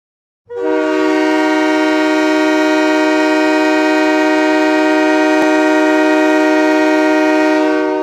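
Utah Grizzlies' hockey goal horn: a loud multi-tone horn sounding one long, steady chord, starting about half a second in and beginning to die away near the end.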